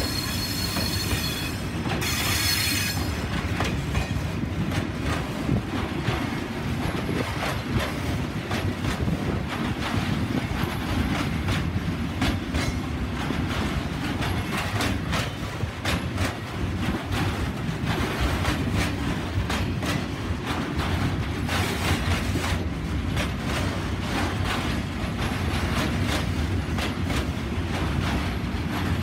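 Loaded timber wagons of a long freight train rolling past, a steady rumble with many clicks of wheels over rail joints. A high wheel squeal sounds twice in the first few seconds.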